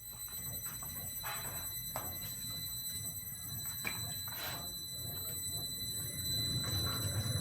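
Steering rack test bench running, pressurising the repaired power steering rack: a steady low hum with a thin, steady high whine above it and a few scattered knocks.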